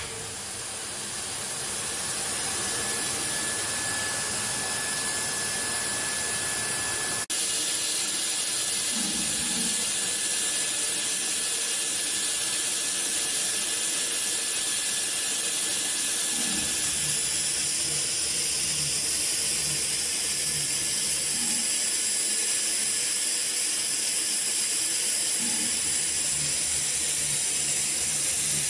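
Steady hiss from a switched-on DMG DMU 100 monoBLOCK five-axis machining center, with a faint steady whistle over the first ten seconds or so. A sharp click about seven seconds in, and a low hum joins after about sixteen seconds.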